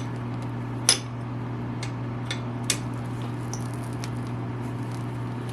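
Scattered light metal clicks and taps of a socket wrench being fitted and handled on an oil filter cover bolt, the loudest about a second in, over a steady low hum.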